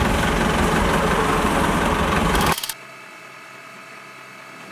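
A small city bus's engine idling with low rumbling street noise, cutting off suddenly about two and a half seconds in; a faint steady hum follows.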